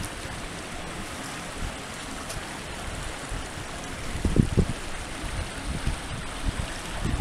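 Muddy floodwater rushing out of and past two 24-inch culvert pipes: a steady wash of flowing-water noise. Low rumbles of wind on the microphone come in about four seconds in and again near the end.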